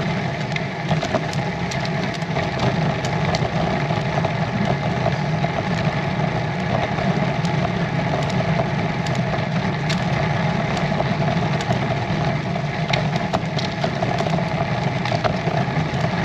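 Steady rumble of a Bianchi Aria road bike's tyres and drivetrain rolling slowly uphill on rough tarmac, picked up through the bike-mounted camera, with scattered light clicks.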